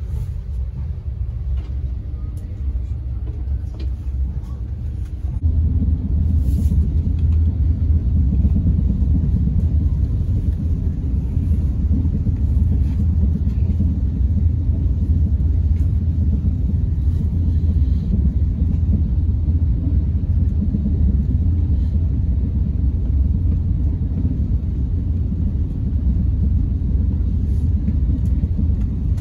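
Cabin rumble of an SRT high-speed train heard from inside a passenger car, a steady low rumble that gets louder about five seconds in and then holds as the train runs at speed.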